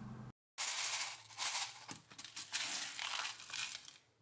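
Steel birdshot pellets rattling and shifting in a plastic tub as fingers stir through them, in several short bursts.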